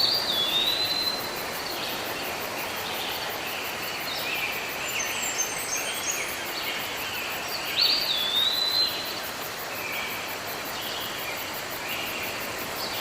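Steady outdoor background noise with repeated high chirping calls over it. Near the start and again about eight seconds in, a call rises and then falls in pitch.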